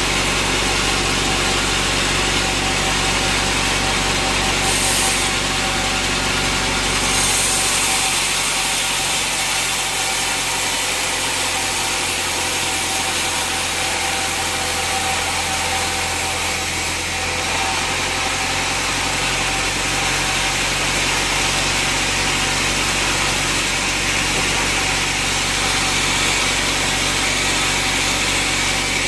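Sawmill saw cutting through a teak log over the steady hum of the mill's machinery, with a brighter, higher hiss of the blade in the wood briefly about five seconds in and again from about seven to seventeen seconds.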